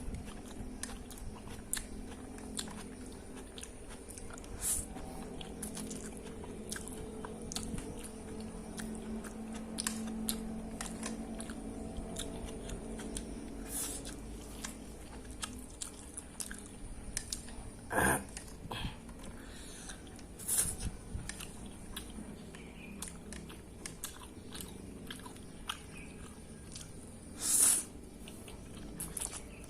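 A person eating instant fried noodles with papaya leaves close to the microphone: steady chewing with many small wet mouth clicks. There are three louder, longer noises, about two-thirds of the way in and near the end.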